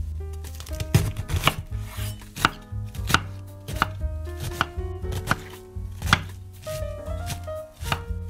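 Chef's knife slicing through a head of green cabbage and knocking on a bamboo cutting board, a regular cut about every two-thirds of a second. Each stroke is a sharp knock.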